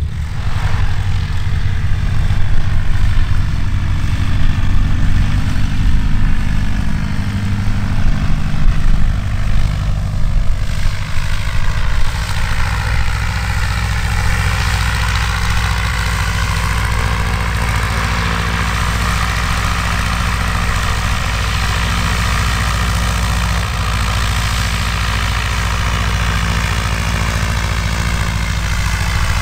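Single-engine Cessna light aircraft's piston engine and propeller running at low taxi power, a steady drone. The sound is uneven for the first ten seconds or so, then steady as the plane taxis closer.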